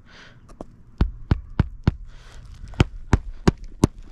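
Hammer driving a roofing nail through a shingle: eight sharp strikes in two runs of four, about three a second, with a short pause between the runs.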